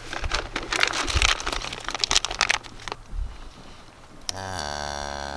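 Rustling, crinkling handling noise for the first few seconds, then a cow lets out a low, steady moo starting a little past four seconds in.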